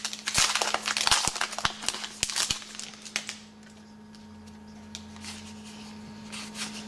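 Trading card pack wrapper crinkling and tearing as it is ripped open, for about three seconds, then quiet with only a few faint ticks as the cards are slid out.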